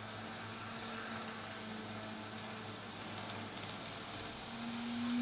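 Motor of a Kato N-scale GE AC4400CW model locomotive running with a steady thin whine, its wheels rolling on the rails as it pulls a short coal train. The whine grows louder and a little higher near the end.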